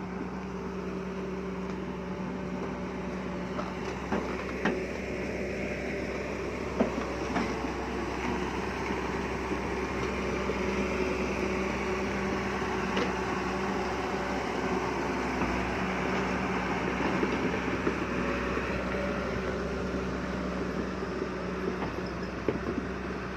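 An engine running steadily: a constant low pitched hum with an even drone beneath it, and a few faint knocks and clicks scattered through.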